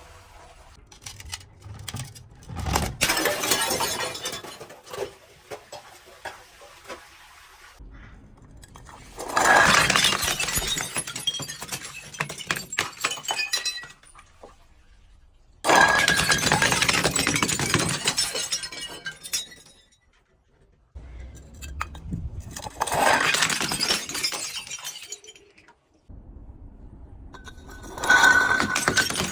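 Glass breaking and crunching in about five separate bouts, each a few seconds of dense crackling with shards clinking, with short quiet gaps between them.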